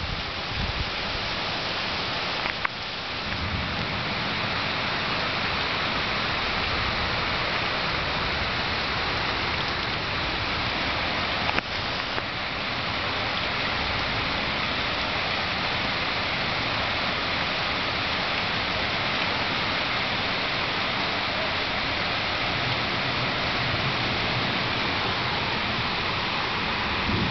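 Heavy rain pouring down onto a flooded street, a steady hiss, with two brief clicks, one near the start and one about midway.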